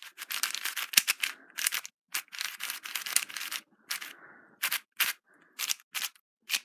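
4x4 speedcube being turned by hand: rapid bursts of plastic layers clicking and sliding, several turns a second in the first four seconds, then sparser single turns with short pauses.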